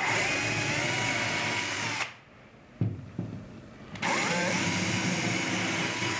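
Power drill with a 5/16-inch bit boring through drywall, running with a steady whine in two runs of about two seconds each. Between the runs there is a short pause with a couple of clicks.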